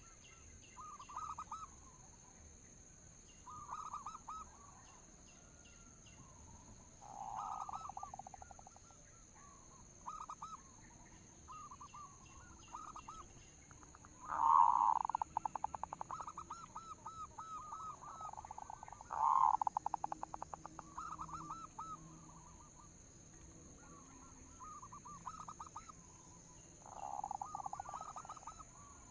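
Zebra dove (perkutut) song: about ten phrases of rapid stuttering coo notes, one every few seconds, the loudest two about halfway through. A faint steady high-pitched tone runs underneath.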